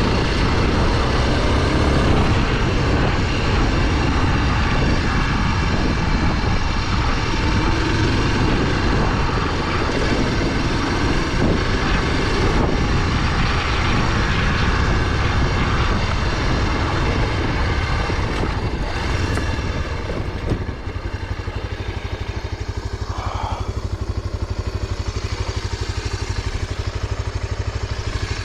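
Honda NX250's single-cylinder engine running under way with a rushing noise over it; about twenty seconds in it drops to a quieter, steady idle.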